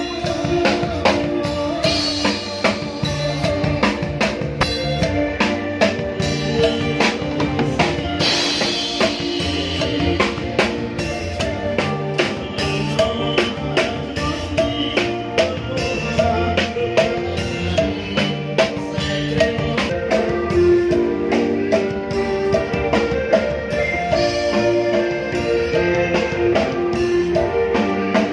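Live band music: a drum kit keeping a steady beat under electric guitar, with some singing.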